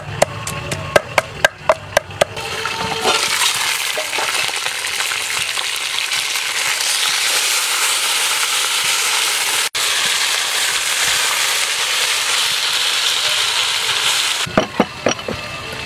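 A wooden pestle pounding chilies and garlic in a mortar, a quick run of knocks over the first couple of seconds. Then a steady sizzle from a whole chicken cooking in an aluminium pot, lasting about eleven seconds, with sharp knocks again near the end.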